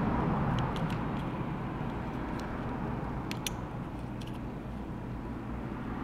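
Steady background hum with a few faint, light clicks of small tools handling the opened iPhone 6's parts, in two small clusters.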